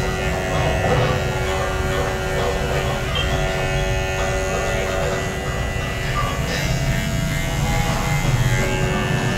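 Electric hair clippers buzzing steadily through short hair, over background music.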